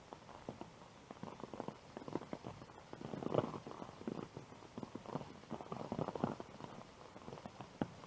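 Footsteps on a wet paved path, with an uneven patter of rain drops: irregular light taps that bunch together more thickly twice in the middle.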